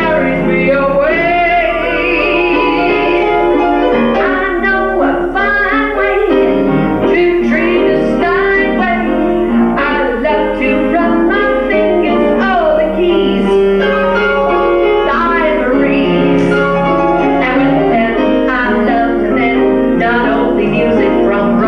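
A woman singing into a handheld microphone with live piano accompaniment, her voice holding and bending long notes.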